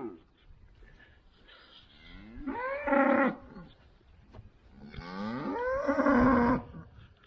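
Cows mooing: two long calls, about two and a half seconds apart, the second one longer. The cows are calling because they want to be moved to fresh pasture.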